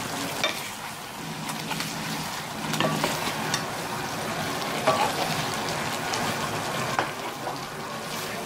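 Chicken curry sizzling in a stainless steel pan as a metal spatula stirs it, scraping through the food, with a few sharp clinks of the spatula against the pan.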